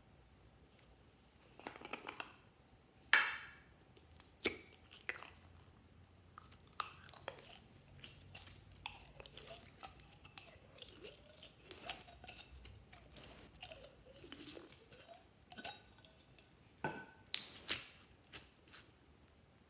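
Hands handling a plastic bottle and clear jelly-like slime: a few sharp clicks and knocks in the first few seconds as the bottle is opened, then the slime drawn out of the bottle with sticky crackling and small squeaks, and a cluster of sharper pops near the end as it is squeezed.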